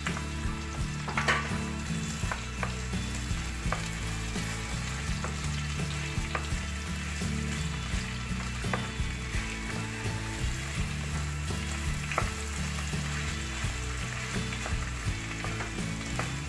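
Sliced bell peppers, carrots and onion sizzling in a hot wok while a wooden spatula stirs them, with irregular knocks and scrapes of the spatula against the pan.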